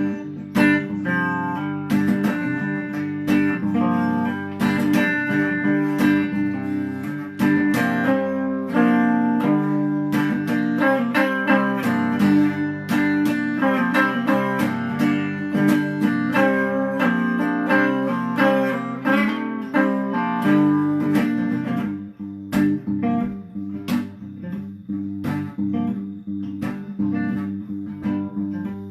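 Music: an instrumental guitar break, fast picked notes over a sustained low accompaniment, growing sparser and a little quieter about two-thirds of the way through.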